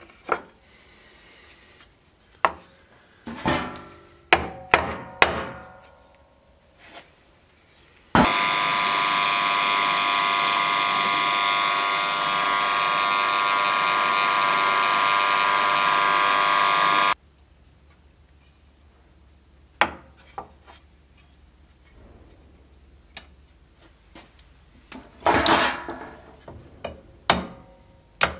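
Scattered knocks and taps of wood and steel being handled on a workbench. About eight seconds in, a power tool starts running steadily with a whining hum, then stops abruptly about nine seconds later, and more scattered knocks follow.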